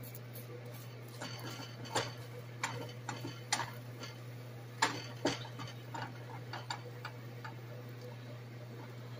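Irregular light clicks and taps of kitchen utensils, about a dozen, loudest about five seconds in, over a steady low hum.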